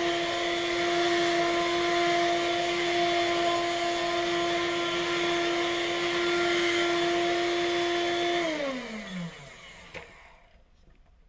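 Vacuum cleaner running with a steady motor hum and rushing air, then switched off about eight and a half seconds in, its motor winding down in a falling whine until it stops. A click follows shortly after.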